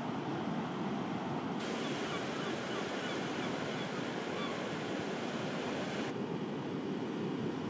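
Sea surf breaking below the cliffs, mixed with wind: a steady rushing noise with no distinct events. Its hiss turns brighter about a second and a half in and duller again about six seconds in.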